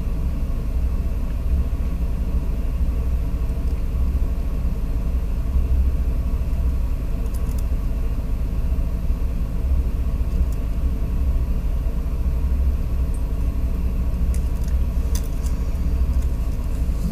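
Steady low rumble with a faint electrical hum, and a few faint high ticks about halfway through and again near the end.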